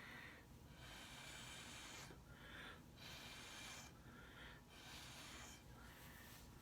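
Faint, repeated airy puffs of a person's breath or blowing, about one every second and a half, over near silence.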